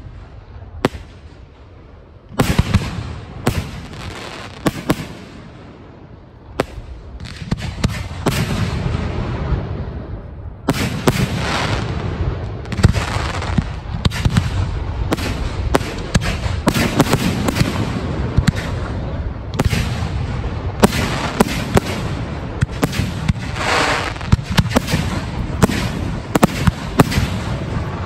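Fireworks display: aerial shells going off with sharp bangs and crackling. The bangs are scattered at first, then come thick and fast from about ten seconds in.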